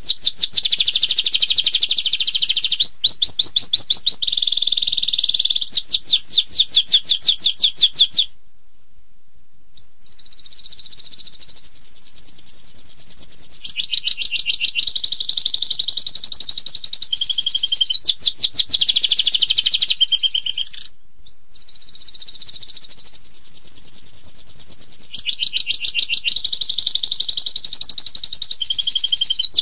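Domestic canary singing a long, loud song of high-pitched fast trills and rapid-fire repeated notes (the 'tembakan' bursts canary keepers prize), broken by short pauses about eight seconds in and again around twenty-one seconds.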